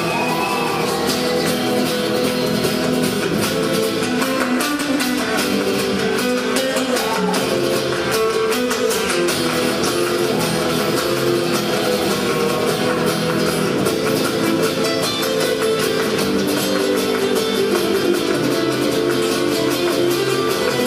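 Live band music led by plucked and strummed guitar, playing steadily.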